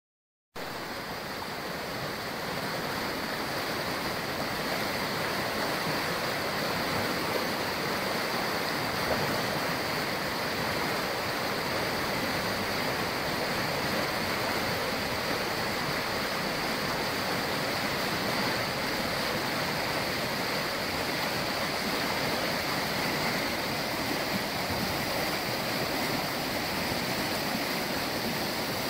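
River rapids swollen with autumn rain, turbulent water rushing steadily over rocks.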